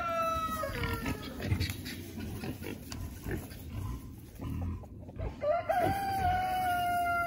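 A rooster crowing. One long crow trails off just under a second in, and a second long crow starts about five and a half seconds in, holding one pitch and then falling off. Low rustling and shuffling fill the gap between.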